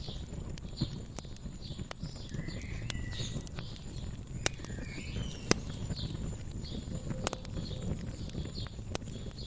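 Wood fire crackling, with a low steady rumble and scattered sharp pops, the loudest about five and a half seconds in. Birds chirp in short repeated calls over it.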